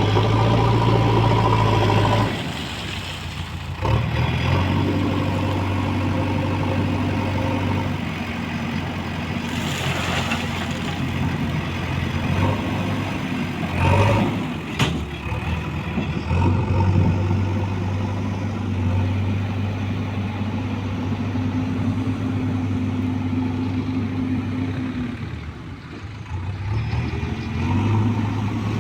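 Engine of a heavy machine running, its speed dropping and picking up several times, with a short sharp knock about fifteen seconds in.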